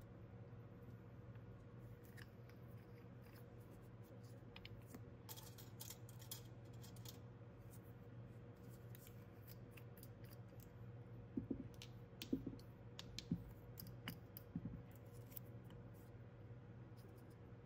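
Steady low hum of an air purifier, with scattered light clicks and taps from plastic nail swatch sticks and polish bottles being handled on a table. A short cluster of louder knocks comes about two thirds of the way in.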